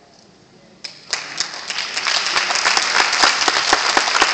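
A congregation applauding. It starts about a second in and builds quickly into loud, steady clapping from many hands.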